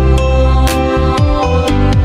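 Electronic background music with a steady beat, regular drum hits and gliding bass notes.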